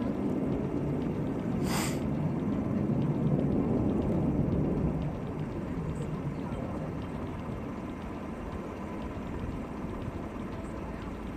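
Low, steady rumble of a distant jet coming in to land, which drops off suddenly about five seconds in and carries on more quietly.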